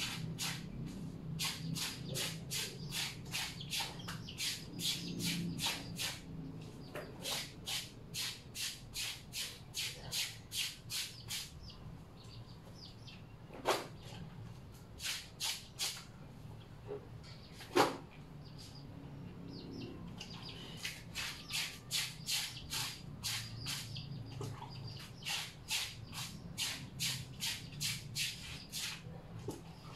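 Clothes being scrubbed by hand in a washtub: rhythmic scrubbing strokes, about two to three a second, in long runs. They pause in the middle, where two sharp knocks stand out, the second the loudest sound, then resume.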